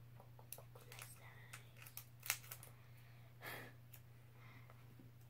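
Faint, scattered rustles and crinkles of a foil Pokémon booster pack wrapper being handled and torn open, over a steady low hum.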